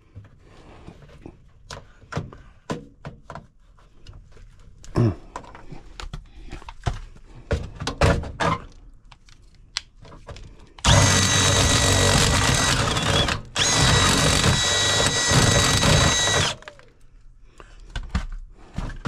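Scattered clicks and knocks of tool handling, then a power drill with a unibit step bit runs in two bursts of a few seconds each, starting about eleven seconds in, cutting through sheet metal with a steady whine from its motor.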